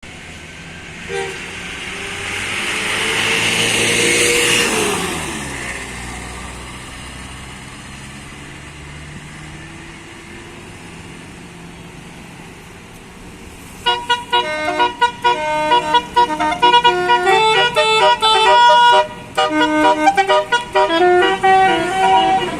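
A vehicle passes with a swell of road and engine noise, its pitch dropping as it goes by. Then, about 14 seconds in, a Basuri 12-note telolet bus horn plays a fast, loud melody of quickly changing notes through to the end.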